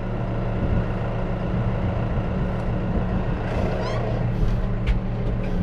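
An engine running steadily with a low, even hum. A sharp click comes about five seconds in.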